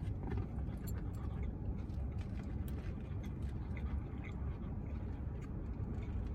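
Steady low rumble of a car idling, heard from inside the cabin, with faint scattered clicks and crinkles from eating a burger and fries.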